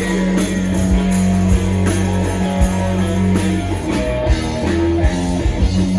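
Live country-rock band playing an instrumental passage: electric guitars and bass over a steady drum beat, with no vocals.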